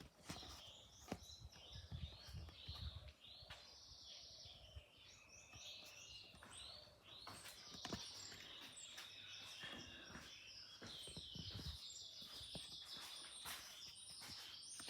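Birds chirping and calling faintly in quick, repeated short notes, with a few soft low thumps.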